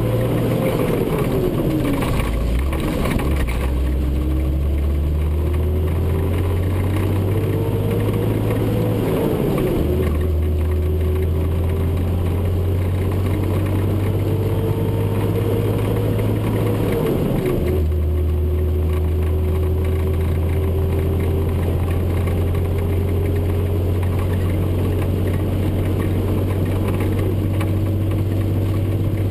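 Diesel truck engine heard from inside the cab, pulling away and working up through the gears: the engine note climbs and then drops sharply at each upshift, near ten and near eighteen seconds in, then holds almost steady at cruising speed.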